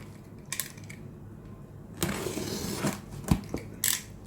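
Cardboard parcel being opened by hand: a few light clicks, then nearly a second of rustling and tearing about two seconds in, followed by a sharp knock and another short rustle.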